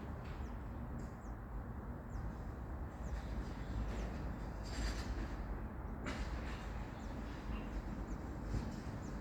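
Outdoor ambience with a steady low rumble, and faint, short, high chirps of small birds several times.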